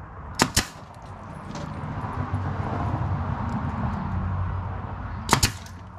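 Pneumatic nail gun firing nails into old porch floorboards: two quick shots about half a second in and two more near the end. A low rumble swells and fades between them.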